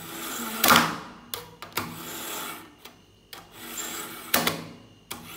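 Steel kitchen knife blade drawn through the slots of a Zircon three-stage pull-through knife sharpener: a series of short scraping rasps of the blade over the sharpening wheels, loudest about a second in and again near the end.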